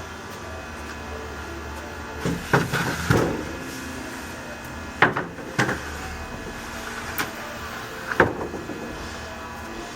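Knocks and clunks of wooden boards being handled and set down: a cluster about two to three seconds in, then single knocks every second or two, over a low steady hum.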